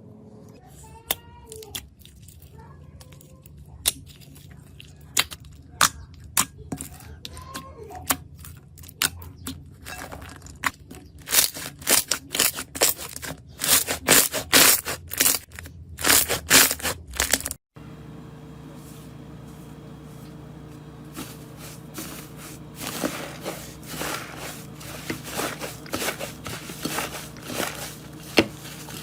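Slime being squeezed and pressed, giving sharp pops and crackles that come thick and loud in the middle. After a sudden cut there is a steadier fine crackling over a low hum.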